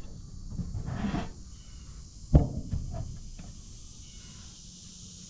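A single sharp knock a little over two seconds in, with quieter handling noises before it over a low steady hum.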